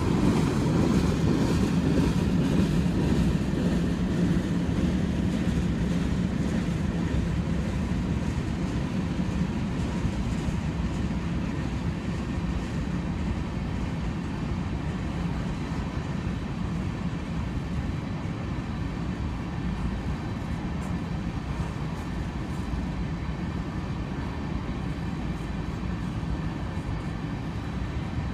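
Union Pacific train rolling past on the rails: a steady rumble that slowly fades.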